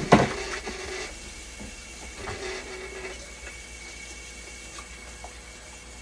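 Sharp knocks and clicks of parts being handled inside a dialysis machine under repair, loudest in the first second and again more faintly after about two seconds, over the machine's steady high whine.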